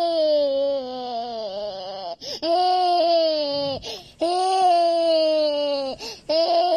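Toddler crying in a tantrum: long, high wails broken by short catches of breath, about four wails in all. The first slides down in pitch.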